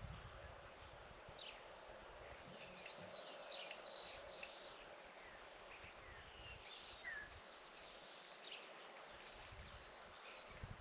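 Faint chorus of small birds chirping and calling, many short quick chirps and whistles scattered throughout, over a light, irregular rumble of wind on the microphone.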